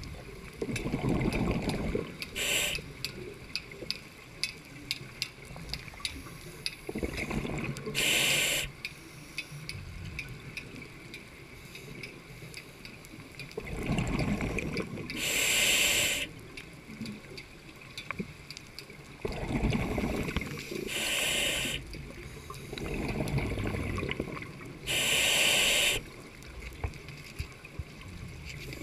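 Scuba diver breathing through a regulator underwater, five breaths about five to six seconds apart. Each inhale through the demand valve gives a short hiss, and each exhale a low bubbling rumble.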